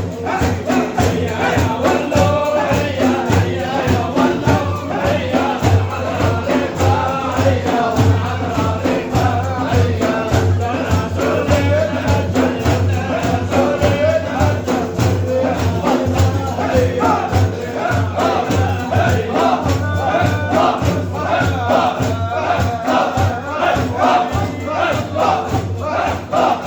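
Sufi dhikr (hadra): a group of men chanting together to a steady beat on frame drums, with a low sustained drone under the wavering voices.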